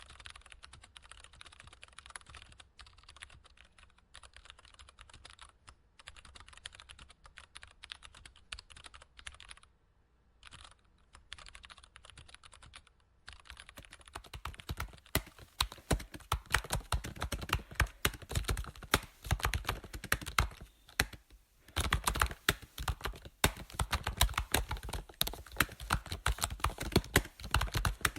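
Typing on a computer keyboard: a fast, uneven run of key clicks. Soft for the first half, with a short pause about ten seconds in, then much louder from about halfway, with another brief pause near the end.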